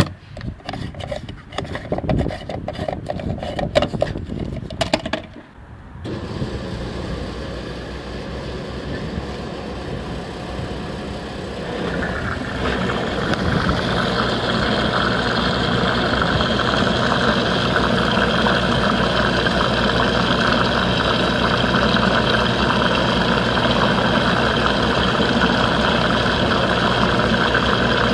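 Car being refuelled at a fuel pump. For about five seconds there are irregular clicks and knocks from handling the nozzle and filler. Then the dispenser runs with a steady hum, which grows louder and brighter about twelve seconds in as fuel flows into the tank.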